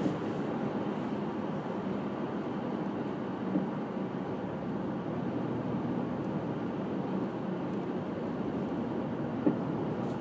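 Inside the cabin of a 2001 Jeep Grand Cherokee on the move: steady engine and road noise, with two brief knocks, one about three and a half seconds in and one near the end.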